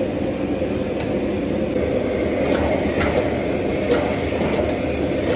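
Steady low roar of a commercial kitchen range, from the gas burner under the wok and the extraction over it. A few light metal clinks from the ladle and wok come in about halfway through.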